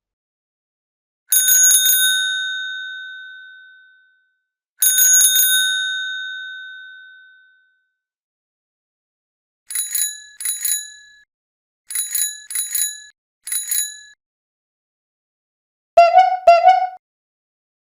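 Bicycle bells ringing as separate effects: two long rings, each starting with a quick trill and ringing out for about two and a half seconds, then a brighter bell in short rings, two, then three, then one. Near the end come two short, lower-pitched tones in quick succession.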